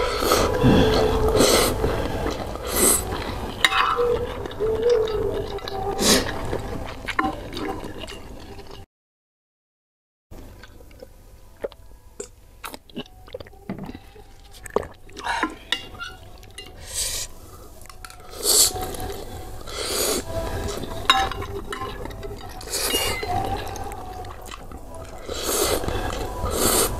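A person eating soupy instant ramen noodles: slurping and chewing, with a metal fork and spoon clinking and scraping against a glass dish. The sound drops out completely for about a second and a half about a third of the way in.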